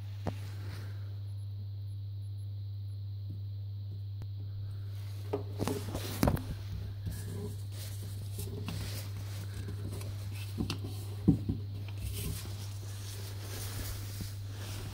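A steady low hum throughout, with scattered light knocks and rustles of objects being handled on a shelf, the loudest about 6 and 11 seconds in.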